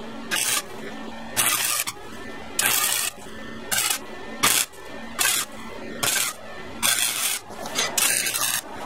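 Welding arc crackling in about ten short bursts of a second or less, with brief pauses between, as a go-kart exhaust header pipe is welded.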